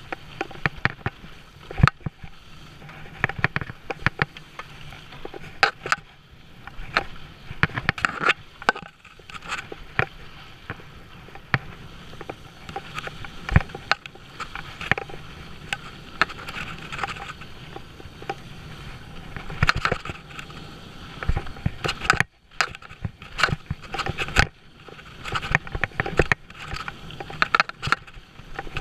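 Mountain bike rolling fast down a rocky dirt trail: tyres running over loose dirt and stones, with frequent sharp knocks and rattles as the bike goes over bumps.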